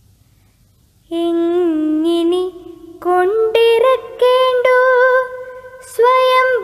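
A woman's voice singing Malayalam verse in the slow chanted style of a poem recitation. The long held notes step upward in pitch and waver slightly, starting about a second in after a faint low hum.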